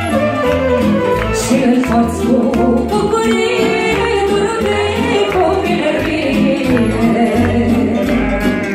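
Live band music: a woman singing into a microphone, with violin and saxophone playing over a steady bass beat.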